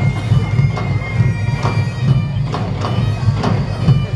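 Bagpipes playing over a continuous drone, with sharp irregular pops and crackles of ground fireworks fountains throwing sparks.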